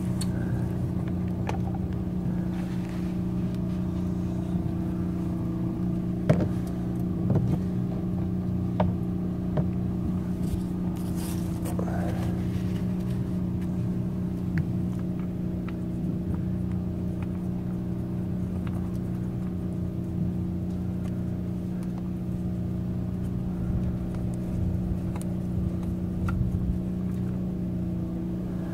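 An engine running steadily at one constant pitch, with a few light knocks and rustles of hand handling over it.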